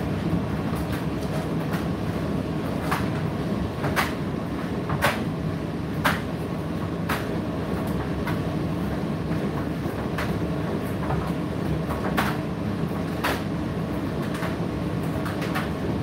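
Indesit IDC8T3 condenser tumble dryer running: a steady hum and rumble from the turning drum and motor, with a sharp click about once a second.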